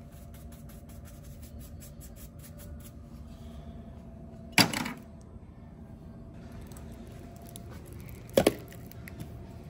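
Steady low hum of a store interior, broken by two sharp knocks about four seconds apart, each with a short ring; the second is a small item set down on a stainless steel counter.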